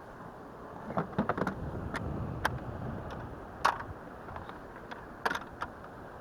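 Irregular sharp knocks and clicks from a freshly caught striped bass and fishing gear being handled on a plastic kayak, over a steady hiss of wind and water.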